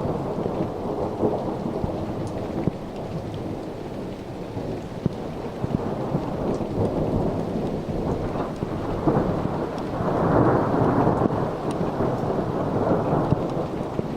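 Thunder rumbling on and on, swelling louder about ten seconds in, with steady rain and scattered drops ticking.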